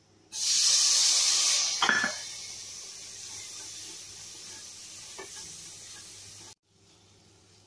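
Chopped tomatoes hitting hot ghee and onion masala in an aluminium pressure cooker: a loud sizzle starts suddenly, then settles to a steadier sizzle as it is stirred. A wooden spatula knocks against the pot twice. The sizzle cuts off suddenly near the end.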